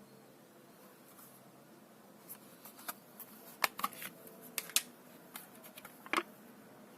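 A run of light, irregular clicks and knocks, the last one about six seconds in slightly longer than the rest.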